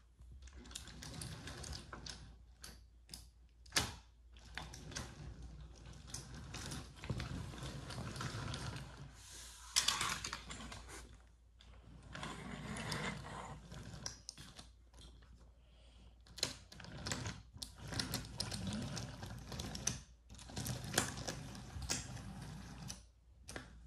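Wooden toy train cars and track pieces being handled and pushed on a wooden floor: irregular clattering and clicking, with a few sharper knocks.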